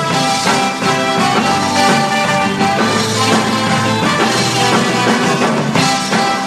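Live band music with a steady beat.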